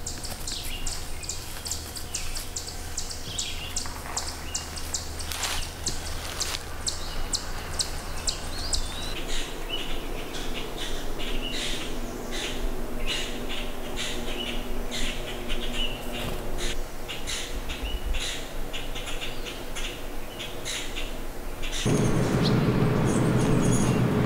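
Wild songbirds chirping and calling, many short high chirps in quick succession, over a low steady hum for the first part. Near the end a louder rushing noise comes in under the chirps.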